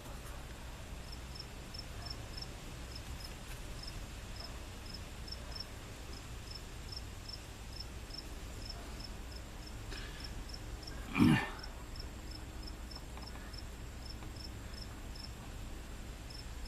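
A cricket chirping steadily, about three short chirps a second, with one short thump about eleven seconds in.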